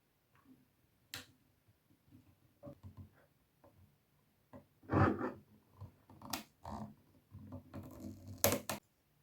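Wooden yarn-holder parts being handled and fitted together: scattered knocks and sharp clicks, sparse at first and busier in the second half.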